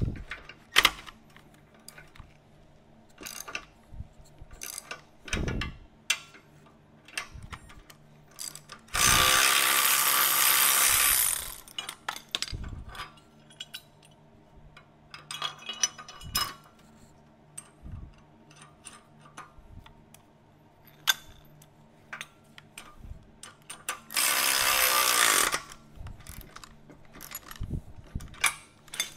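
Bolts being worked with tools: scattered ratchet clicks and clanks of metal parts, with a power tool running for about two and a half seconds about nine seconds in and again, more briefly, near twenty-four seconds.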